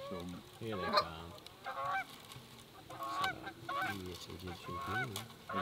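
Canada goose honks and clucks: a run of short, bent calls at irregular intervals.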